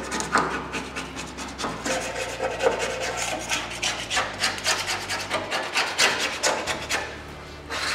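A rag rubbed hard over a paint-stripped steel body pillar of a Ford XC Falcon panel van, wiping off paint softened by chemical stripper: quick, rough, repeated rubbing strokes that stop near the end.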